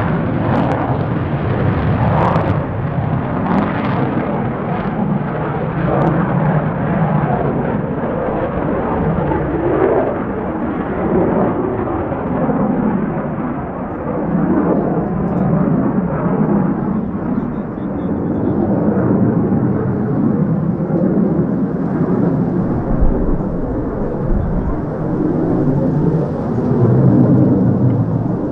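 Jet aircraft engine noise: a loud, steady low rumble that dips a little midway and swells again near the end.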